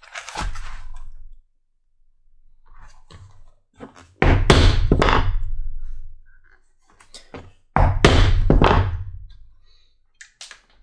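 Round hole punch being driven through the holster leather and its lining with a mallet: three bouts of dull, thudding knocks, one at the start, one about four seconds in and one about eight seconds in.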